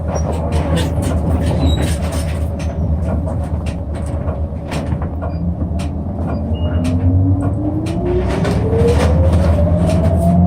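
Interior of a city bus in motion: a steady low engine rumble with frequent rattles and clicks from the cabin. Over the last few seconds a whine rises steadily in pitch as the bus gathers speed.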